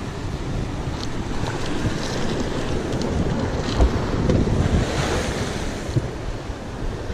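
Sea surf washing against the rocks, with wind buffeting the microphone; the surf swells louder about four to five seconds in.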